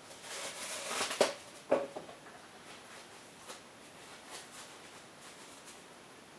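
Handling noise from small metal engine parts, the other half of a connecting-rod bearing shell being fitted into its rod cap: a short rustling hiss with two sharp clicks in the first two seconds, then faint rustles and ticks.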